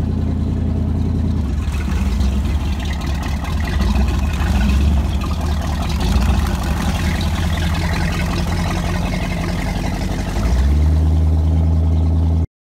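Inboard engine of a wooden Riva motorboat running as the boat pulls away from the quay, a steady low engine note. About ten and a half seconds in the engine gets louder and holds a steadier note, then the sound cuts off suddenly near the end.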